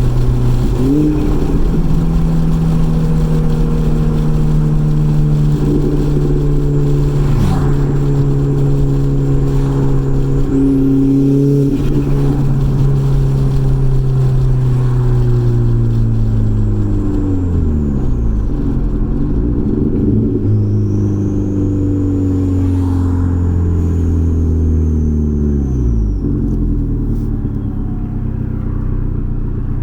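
Turbocharged 1.8-litre four-cylinder of a B5 Audi A4 with a stock K03 turbo, driven on the street: the engine note holds steady, then falls in pitch, dropping sharply a few times as the throttle comes off. A faint high whistle sits above the engine note.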